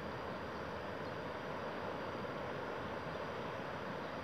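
Steady rushing of the Una river in full flood after heavy rains, a fast, swollen current churning past the bank.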